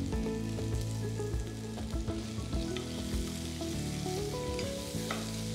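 Sliced shallots sizzling as they fry in sesame oil in an enamelled pot, with light scrapes and taps of a wooden spatula stirring them.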